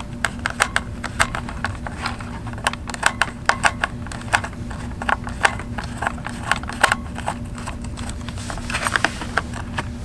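Screwdriver backing out a small screw from the main circuit board inside a FrSky Taranis X9D Plus radio transmitter: a string of irregular small metallic clicks and ticks, over a steady low hum.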